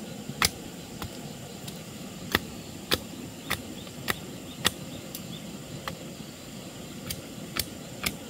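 Machete blade chopping at a thin stick held upright, sharp knocks coming about every half second with a pause of over a second midway.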